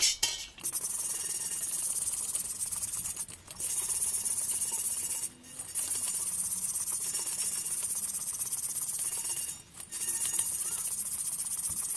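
Stiff hand brush scrubbing the inside of a cast-iron kazan in quick strokes, a steady scratchy rasp that stops briefly three times. It is brushing out the residue of factory grease that has just been burnt off the iron.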